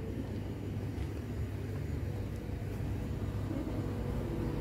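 Steady low rumble with a faint steady hum above it, and no sudden sounds.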